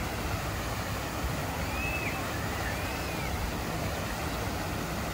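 Steady rushing outdoor background noise, with a few faint, short high chirps about two to three seconds in.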